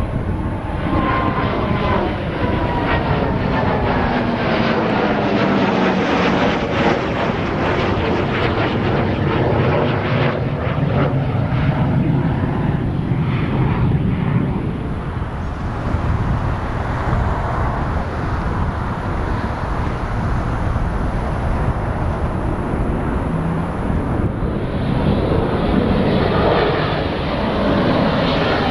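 Dassault Mirage 2000 jet passing overhead, its single turbofan engine loud throughout. A whine falls in pitch over the first few seconds as it goes by, the noise crackles through the middle, and it builds again near the end as the jet comes back round.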